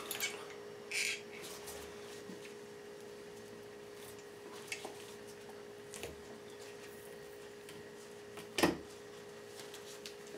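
Quiet handling sounds of gloved hands working a mink pelt hung in a wall clip during skinning: a short rustle about a second in, a few faint ticks, and one sharper knock near the end. A steady low hum underlies it.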